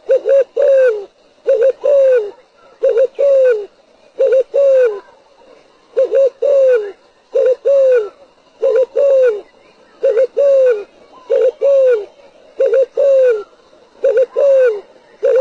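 Spotted dove cooing its repeated call. Each phrase is a couple of short coos followed by a longer, falling coo, and the phrase comes about every second and a half.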